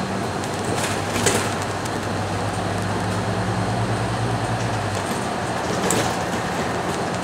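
Cabin noise of a Scania K310UB city bus underway: its diesel engine hums steadily under tyre and road noise, the low engine hum dropping away about five seconds in. Two brief rattles sound, about a second in and again near the end.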